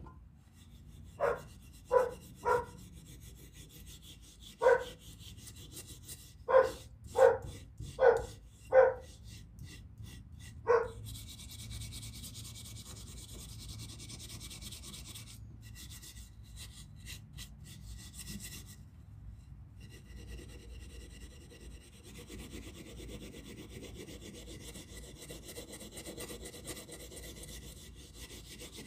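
About nine short, sharp pitched sounds in the first eleven seconds, then steady rasping rubbing of hand abrasive work on the old plane that runs to the end.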